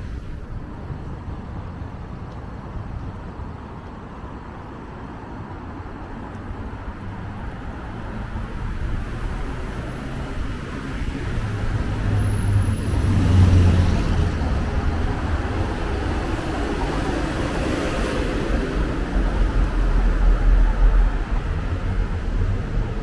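Road traffic on a city boulevard, cars and city buses passing with a steady rumble of engines and tyres. It swells as vehicles go by about halfway through and again near the end.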